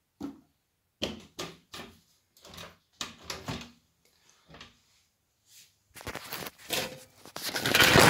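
Handling noise at an electric oven: a string of short knocks and clicks through the first few seconds, then a denser, louder clatter in the last two seconds.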